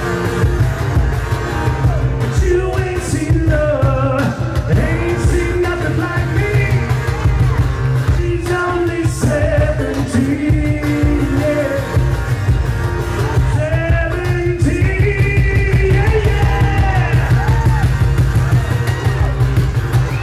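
Live rock song: a man's lead vocal singing a melody over a strummed twelve-string acoustic-electric guitar, played loud through a PA with a heavy, boomy low end.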